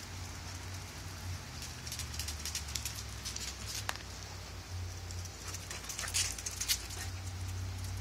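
Corgi puppies' claws clicking and scrabbling on concrete as they run and wrestle, in scattered quick taps that come thickest about six to seven seconds in, over a steady low rumble.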